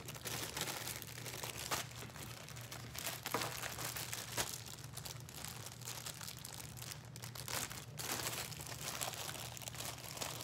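Clothing packaging crinkling and rustling as a garment is handled and unwrapped: a run of irregular soft crackles.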